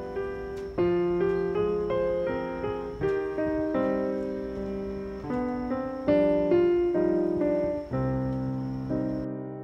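Background piano music: a slow, gentle piece of chords and melody notes, each struck note fading away before the next.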